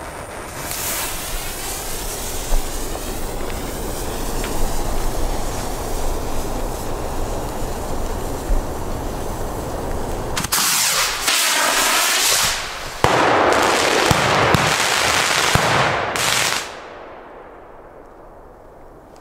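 Fireworks burning: a continuous hiss and crackle with a few sharp cracks, growing louder a little past the middle and then cutting off abruptly near the end.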